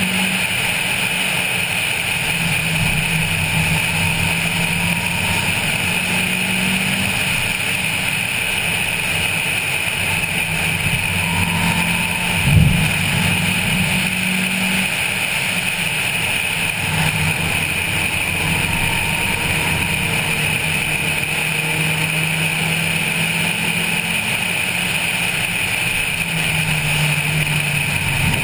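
Wind rushing over a roof-mounted camera at track speed, with the Honda Civic 1.5's engine droning underneath, its pitch shifting up and down with the throttle. A single short thump a little before halfway.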